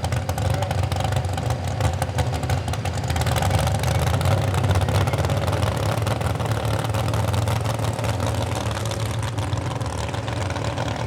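Pulling vehicle's engine running hard at full throttle down the track while dragging the weight-transfer sled, a steady loud drone.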